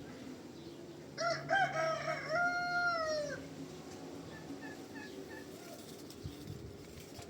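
A rooster crowing once, about a second in, for roughly two seconds, the call held and then falling off at the end.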